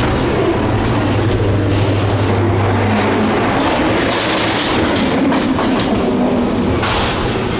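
Ghost-train ride car running along its track, wheels rumbling and clattering, with a steady low hum that stops about three and a half seconds in.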